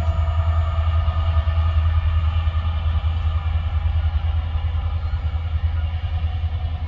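A freight train rolling past with a steady, loud low rumble. Some higher steady tones above the rumble fade away over the first few seconds.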